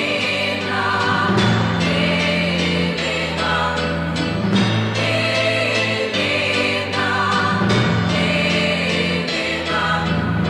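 Background pop music in an instrumental passage between sung verses: long held chords that change every second or two, with no lead vocal.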